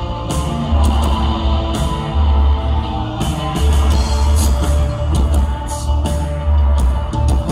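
Live post-punk rock band playing: a heavy, pulsing bass line under drums with cymbal hits and sustained electric guitar.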